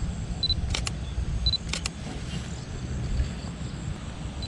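Canon EOS M50 taking two photos about a second apart. Each is a short high focus-confirmation beep followed by the shutter's quick double click. A steady low rumble runs underneath.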